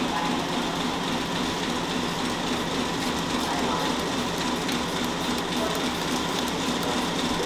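Steady mechanical drone with a low hum, unchanging, with no distinct events standing out.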